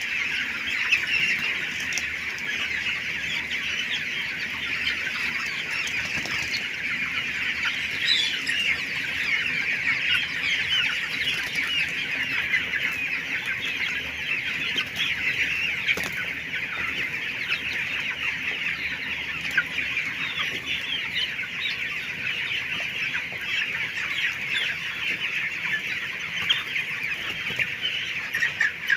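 A large flock of poultry-farm chickens clucking and chirping all at once, a dense, steady chatter of many overlapping calls.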